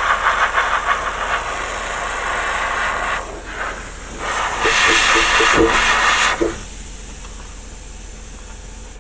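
Airbrush spraying primer in two spells of hiss: one over the first three seconds and a louder one from about four and a half to six and a half seconds. A fainter steady hiss follows.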